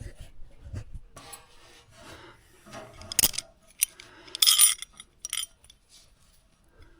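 Metal hardware and tools handled: light scraping and rubbing with a few sharp metallic clinks, loudest around the middle.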